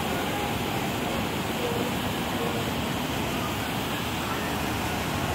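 Steady rushing of a man-made waterfall pouring off a road bridge into the canal, a constant even roar of falling water.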